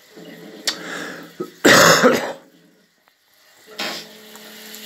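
A man coughing: one loud, harsh cough about two seconds in and a shorter second cough near the end, over a faint steady hum.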